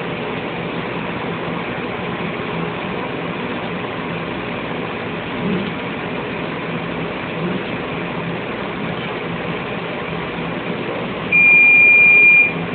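Laser cutter running with a steady mechanical hum as its head engraves lettering. Near the end a loud, high, steady beep sounds for about a second as the engraving job finishes.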